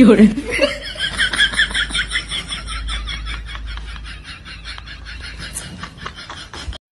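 Laughter sound effect, edited in: a rapid run of laughing pulses, loudest at the start and fading off.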